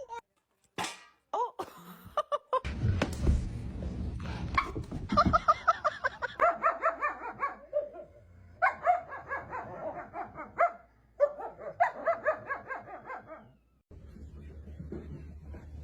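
A dog barking in rapid runs of about five barks a second, three runs with short pauses between, after a few seconds of low rumbling noise.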